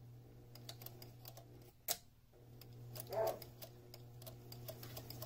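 Domestic sewing machine stitching a straight seam: a steady motor hum under a quick, even ticking of the needle. There is a sharp click just under two seconds in and a brief louder burst around three seconds.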